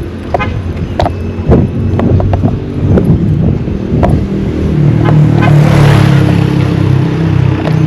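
A motor vehicle passes close by: its engine comes up about halfway through, loudest around six seconds in, then eases off. Short knocks and ticks come and go throughout.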